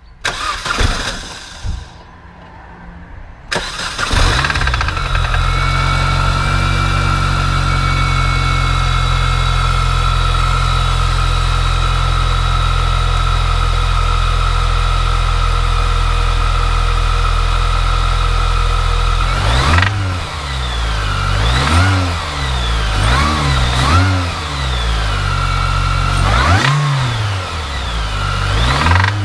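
Mini Cooper S R53's supercharged four-cylinder engine starting about four seconds in, with a brief knock that disappears almost at once, then idling steadily before being revved in several quick blips in the second half. The owner suspects worn big-end bearings from the engine having run low on oil.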